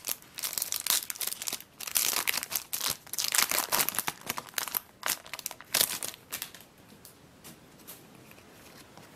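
Foil trading-card booster wrapper being torn open and crinkled: a run of sharp crackling rustles that dies away about two-thirds of the way through, leaving only faint ticks.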